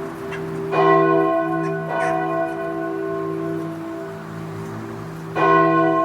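A large bell being struck and left to ring, its long tone with many overtones sounding on. It is struck hard about a second in and again near the end, with a lighter strike about two seconds in.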